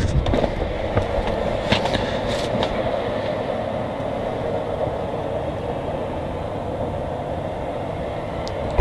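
Steady background noise of unknown source, with a few clicks and knocks in the first three seconds as someone climbs into a pickup truck's cab.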